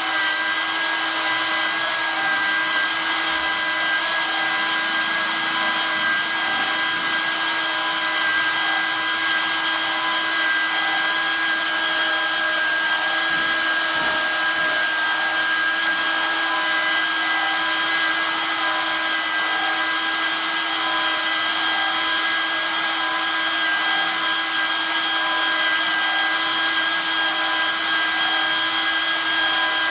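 Nodha pipe cutting and beveling machine running steadily, its motor giving a constant whine made of several steady tones with no let-up.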